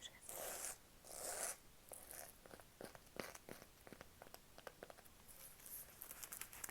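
Close-miked ASMR tapping: after two short soft swishes, a run of light, irregular taps and clicks.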